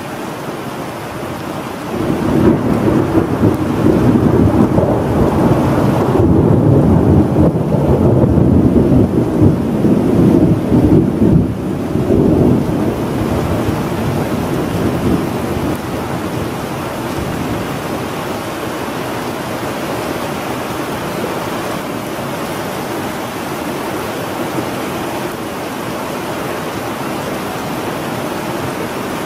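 Thunderstorm: steady rain with a long rumble of thunder that swells about two seconds in and dies away after about twelve seconds, leaving the rain.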